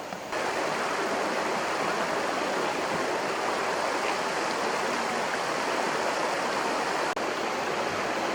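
Steady rushing of a flowing stream, cutting in suddenly just after the start and briefly dropping out about seven seconds in.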